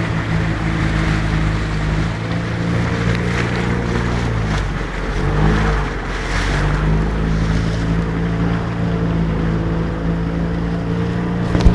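Motorboat engine running steadily under the rush of water along the hull. About five seconds in, the engine note briefly falls away and shifts, then settles back. A sharp knock comes at the very end.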